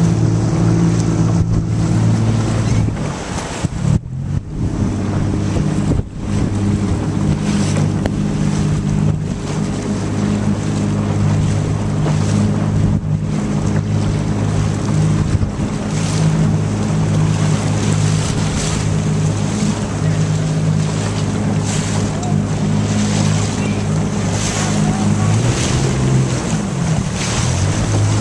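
Small outboard motor running at a steady speed, its pitch shifting a few times as the throttle changes, with wind buffeting the microphone and water splashing against the hull.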